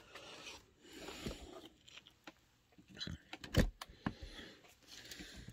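An RC crawler's truck body being handled and set down onto the chassis: faint rustling and small clicks, with one sharp knock about three and a half seconds in, the loudest sound.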